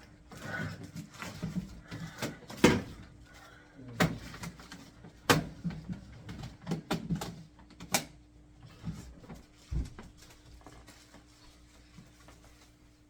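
Irregular knocks, clicks and thuds of a portable air conditioner and its parts being handled and set up, busiest in the first ten seconds and then tapering off, over a faint steady hum.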